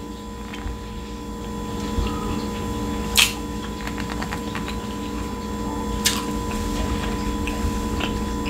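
Close-miked, closed-mouth chewing of a mouthful of steak, with wet mouth sounds and two sharp clicks about three and six seconds in, over a steady background hum.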